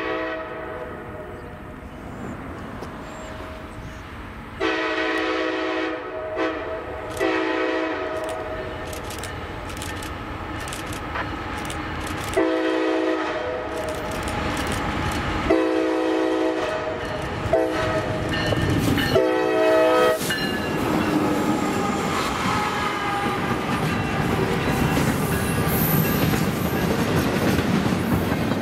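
Freight locomotive air horn blowing a multi-note chord in a series of blasts, some long and some short, over the first two-thirds. Then the train rolls by close, its wheels rumbling and clicking over the rail joints, growing louder near the end.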